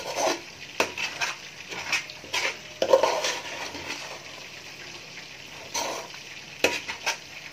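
Steel spoon scraping and clinking against a metal cooking pot as thick cooked vegetable masala is scooped out, in short irregular strokes, the loudest about three seconds in.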